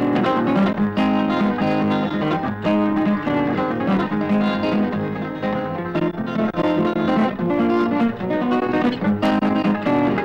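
Background music of plucked strings playing a melody.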